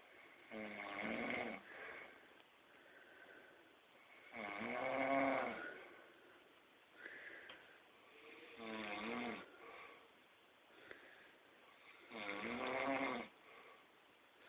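A man snoring in his sleep: four loud, rasping snores, each about a second long and coming roughly every four seconds, with faint breathing between them.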